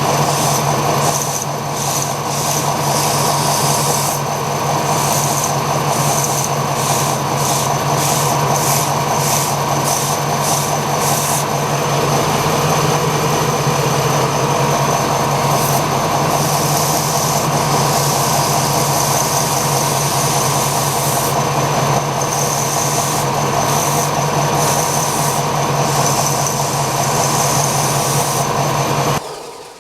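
Belt sander running with a steady motor hum, with repeated bursts of higher scuffing hiss as a leather edge is pressed lightly against the worn abrasive belt to skive it thin. The sander cuts off near the end.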